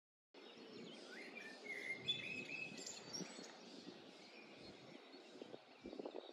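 Faint outdoor ambience with birds chirping and singing, the calls clustered in the first half, over a soft background hiss.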